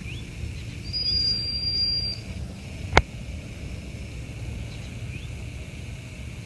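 Open-air field ambience: a steady low rumble with a couple of faint short bird chirps, a steady high thin tone lasting about a second from about a second in, and one sharp click about three seconds in.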